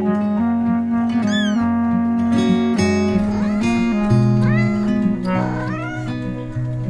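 A cat meowing several times in short arching calls over background acoustic guitar music.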